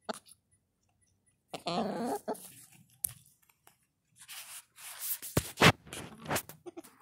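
Hens scratching and pecking in dry straw and dirt: crunching and rustling, with a few sharp taps in the second half and a short hen call about two seconds in.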